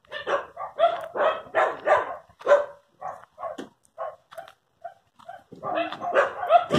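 Dogs barking in a rapid series of short barks. They are loudest over the first couple of seconds, fainter in the middle, and bunch together again near the end.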